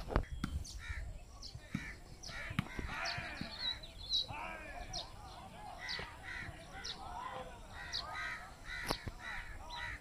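Birds at a baya weaver nesting colony calling: busy chattering mixed with short harsh calls that repeat about twice a second, with a few sharp clicks.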